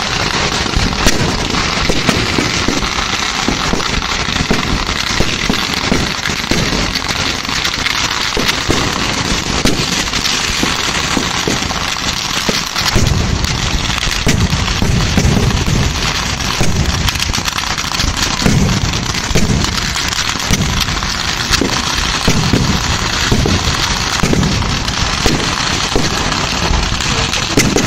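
Kerala temple fireworks (vedikkettu) going off in a dense, continuous barrage of crackling firecracker pops, with heavier low booms mixed in from about halfway through.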